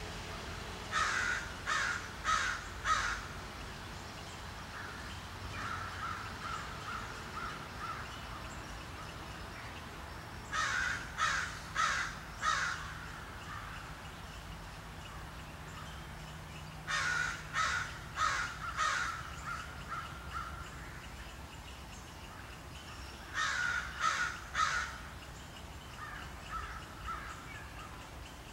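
A crow cawing in runs of about four harsh calls, a run every six or seven seconds, with fainter caws between the runs.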